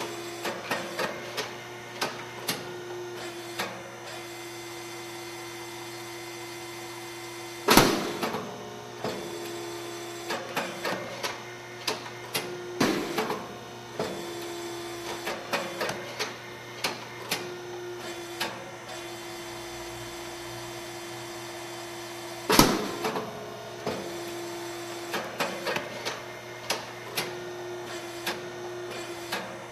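SYP8501 rice cake popping machine running with a steady motor hum and frequent light clicks from the mechanism. Two loud pops, about 8 s and 23 s in, as the heated mold releases and the pressed rice puffs into a round cake.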